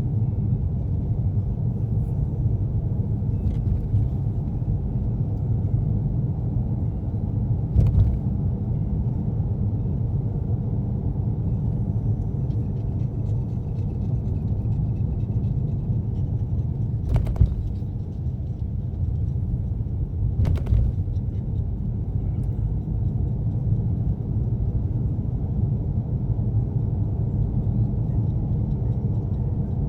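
Steady low road and engine rumble heard inside a moving car's cabin, broken by a few short knocks, at about eight, seventeen and twenty seconds in.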